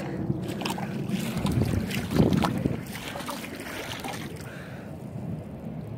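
Wind buffeting a phone microphone: a fluttering low rumble with scattered clicks and a swell about two seconds in.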